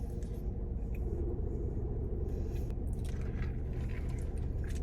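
A person chewing a mouthful of burger close to the microphone, in short irregular chews, over a steady low hum.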